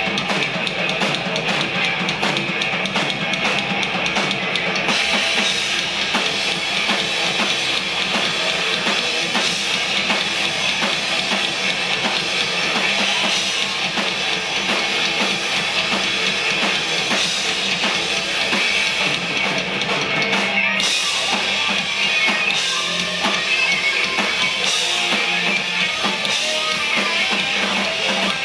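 Hard rock band playing live through a PA: electric guitars over a drum kit. The cymbals get louder about five seconds in and again near the end.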